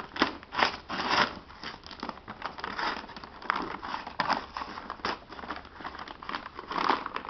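Stiff brown paper crinkling and rustling in irregular bursts as it is handled and pulled open, loudest in the first second and a half.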